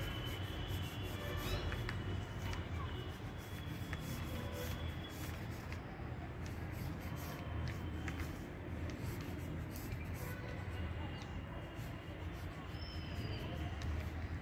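Short scratching strokes of a drawing stick on a sheet of paper, coming in quick irregular runs, over a steady low background rumble.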